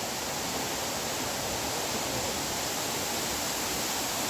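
Waterfall: falling water making a steady, even rush of noise.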